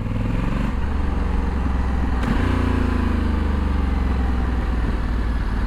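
Honda Africa Twin's parallel-twin engine running steadily while the bike is ridden. About two seconds in there is a short click, and after it the engine note shifts.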